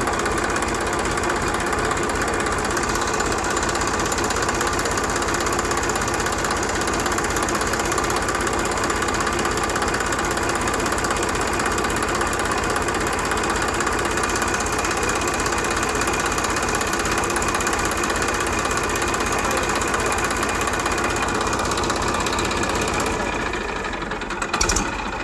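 A small engine running steadily with a dense, rattling texture. It eases off slightly near the end, followed by a couple of sharp clicks.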